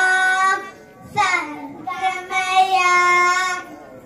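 Children singing into a microphone, holding long notes: one note ends about half a second in, and after a short break another is held for over two seconds.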